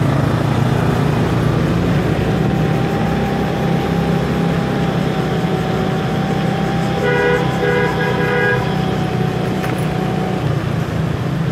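Motor scooter running through city traffic, with steady engine and road noise. About seven seconds in, a vehicle horn gives a quick run of short honks.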